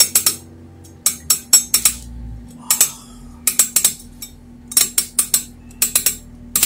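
Quick runs of sharp ratcheting clicks, four or five at a time, about once a second, as a screwdriver turns the limit-switch setting spindle of an Auma multi-turn valve actuator to set the end position. A steady hum runs underneath.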